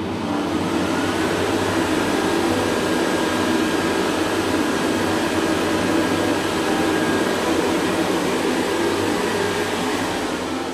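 Automatic hand dryer in a self-cleaning public toilet blowing steadily, set off by a hand held under it, and starting to die away near the end.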